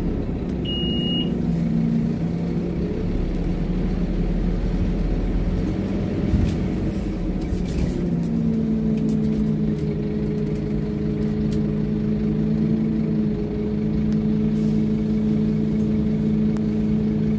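Scania OmniLink bus's engine and drivetrain heard from inside the passenger saloon: a steady drone that shifts to a new, stronger steady note about halfway through. A short high beep sounds about a second in.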